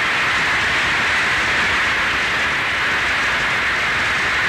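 Assembly members applauding, steady and sustained.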